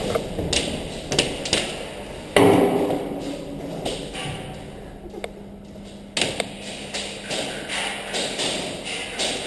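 A string of irregular knocks and thumps, the loudest about two and a half seconds in, another pair near the middle and a scatter of lighter taps later on, amid the shooting and movement of an airsoft close-quarters game.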